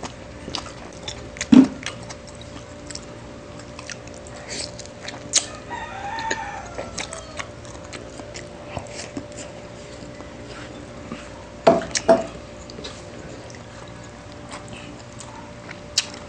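A rooster crows once, about six seconds in, over close-up eating sounds: chewing, lip smacks and sharp clicks, the loudest a little after the start and again around twelve seconds. A faint steady hum runs underneath.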